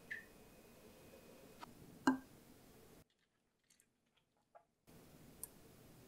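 A few faint clicks and one soft tap about two seconds in, from a wooden spoon and plastic bottle being handled while thick sugar syrup is poured into the bottle. In the middle there is a second or so of dead silence, then a single small tick.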